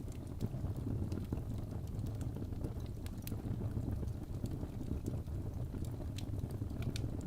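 Wood fire burning in a fireplace: a steady low rumble of flames, broken by irregular sharp crackles and pops about one or two a second.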